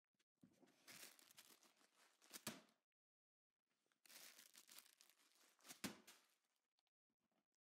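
Faint rustling and rubbing of fabric close to a phone's microphone, in two bursts of about two seconds each, each ending with a sharp knock.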